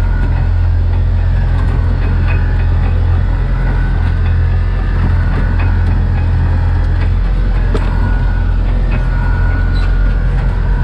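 Engine of a small shrimp trawl boat running steadily, a deep even hum that holds at one pitch.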